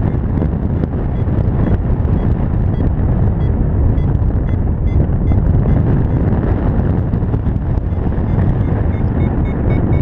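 Steady rush of wind on the microphone in paraglider flight, with the faint short beeps of a variometer through it, scattered at first and coming regularly near the end. A variometer beeps like this in rising air.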